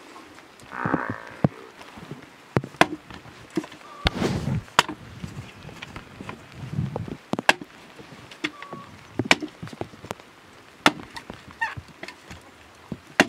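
Firewood being chopped and split by hand with a short blade: sharp, irregular knocks of the blade striking wood, roughly one a second, with a brief clatter of wood about four seconds in.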